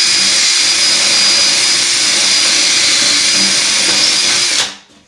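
Power drill running steadily with a high motor whine as its bit bores through drywall, cutting off near the end.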